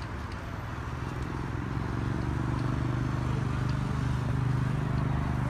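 A steady low engine or motor hum that grows louder about two seconds in and then holds even.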